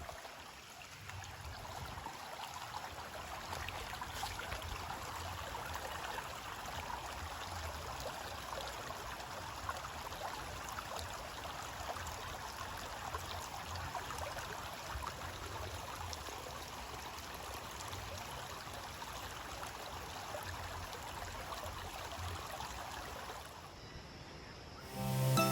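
A stream flowing steadily, a continuous rushing of water.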